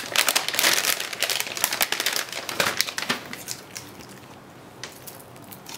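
Metallic anti-static bag crinkling and crackling as a graphics card is slid out of it, dying down after about three seconds.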